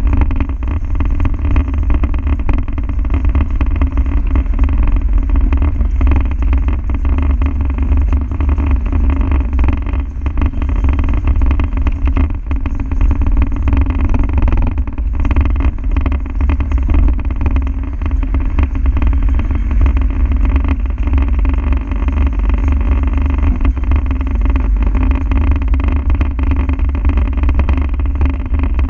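Land Rover Defender's diesel engine running while the vehicle is driven, with steady road and drivetrain noise and a strong low rumble.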